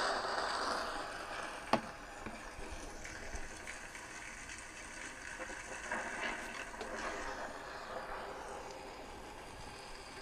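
A video's ambient soundtrack playing through a OnePlus 8 smartphone's speakers, a steady rushing haze with a few swells. A single sharp knock a little under two seconds in, as the phone is set down on a wooden table.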